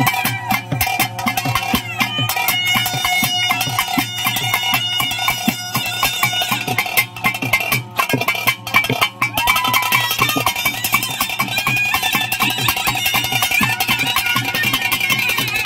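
Traditional ritual music: a reed wind instrument holding a wavering melody over rapid, dense drumming.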